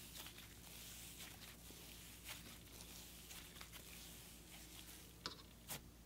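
Faint soft squishing of a wet frost-textured slime being stretched and squeezed by hand, with a few small sticky pops about two seconds in and twice near the end.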